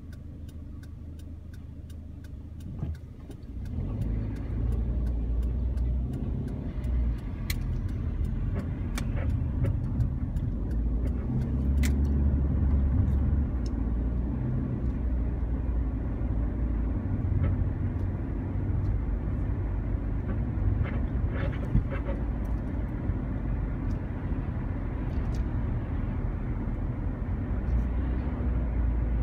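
Car interior: a turn-signal indicator ticking steadily while the car idles at the lights, then engine and tyre rumble rising as the car pulls away about three seconds in. The ticking stops a little before halfway and steady road noise carries on.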